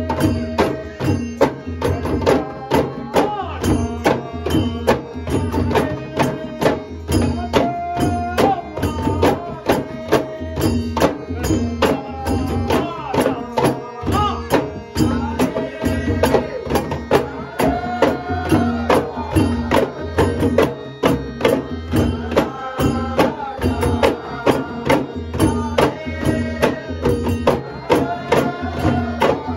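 A group of ghumat drums, clay pots with a skin over the mouth, struck by hand in a steady beat, accompanying a man singing a Konkani Shimga folk song in a strong voice.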